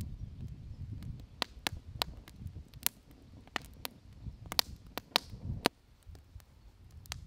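Wood fire crackling in a fire pit: irregular sharp pops and snaps from the burning logs over a low rumble.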